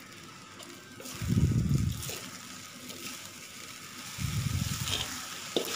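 Fried rice sizzling with a steady hiss in a steel wok as soy sauce is poured on and a metal spatula starts stirring, with a short scrape-click of the spatula near the end. Two low rumbling bumps, the loudest sounds, come about a second in and again about four seconds in.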